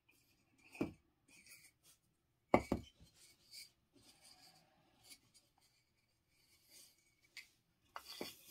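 3D-printed terrain tiles being handled and fitted together: a few knocks and clacks as pieces are set down and pushed against each other, the loudest about two and a half seconds in, with light scraping and sliding between.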